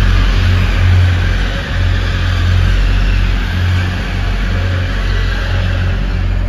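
Grand Central Class 180 diesel multiple unit moving along the platform, its diesel engines and wheels on the rails making a steady, loud, deep rumble.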